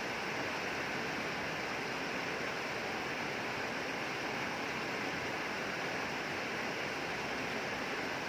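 Steady rain falling, an even, unbroken hiss with no separate drops or thunder standing out.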